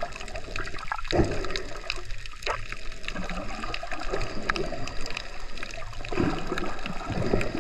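Water gurgling and sloshing around an action camera held underwater while snorkeling, swelling and fading unevenly, with many short scattered clicks and crackles.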